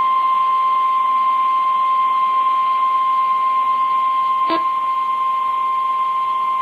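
NOAA Weather Radio warning alarm tone: one long steady beep, with a brief click about four and a half seconds in. The tone signals a warning-level alert, here a flash flood warning.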